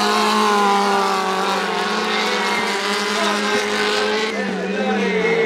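Small dirt-track speedway race cars' engines running at high revs as the cars pass in a pack, the engine note sagging slightly and climbing again.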